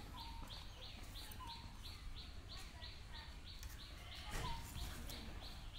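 A small bird repeating a short, high, falling chirp about three times a second, with a few fainter lower calls, over a quiet outdoor background.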